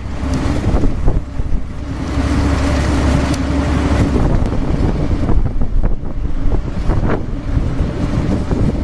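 Excavator's diesel engine running steadily, with wind buffeting the microphone.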